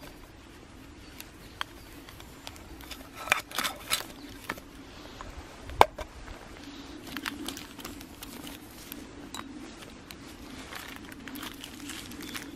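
Cloth stuff sack rustling and crinkling as small camping gear is unpacked, with a few light knocks of metal items set down on a wooden stump; the sharpest click comes about six seconds in.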